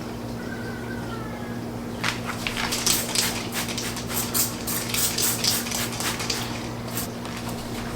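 Dishes and cutlery clinking and clattering as they are handled, a quick run of sharp knocks starting about two seconds in and easing off near the end, over a steady low hum.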